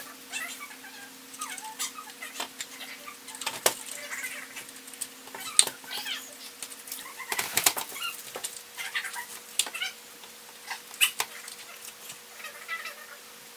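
A cat meowing now and then, with scattered clicks and knocks as the hanging stained-glass panel is handled and straightened, over a steady low hum.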